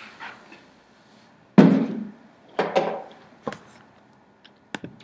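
Handling knocks and clicks: one loud thump about a second and a half in, two smaller knocks a second later, then a few sharp clicks near the end.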